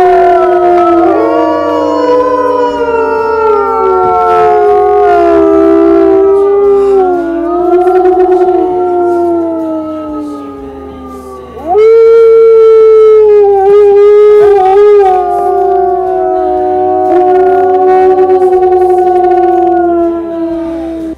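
Several wolves howling together: long, drawn-out howls that overlap and slide slowly up and down in pitch. The chorus fades a little, then a new loud howl starts about halfway through.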